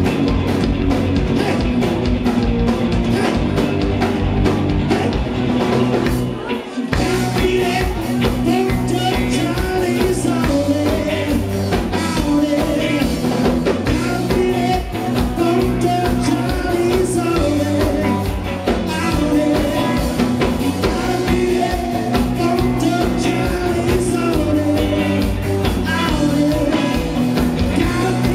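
Live rock band playing: electric guitar, bass guitar and drum kit. There is a brief break about seven seconds in, and then the full band comes back in.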